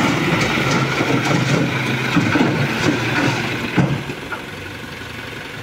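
Dump truck engine running while the hydraulic hoist holds the bed tipped, and a load of sand slides and pours out the back onto the ground. The sound gets quieter from about four seconds in.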